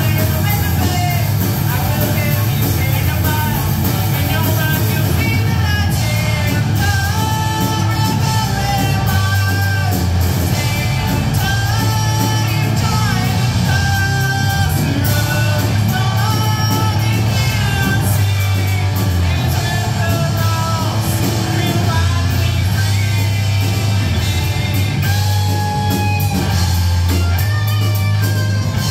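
Live rock band playing: electric guitars, bass guitar and drum kit, with strong bass, and a woman singing lead over it.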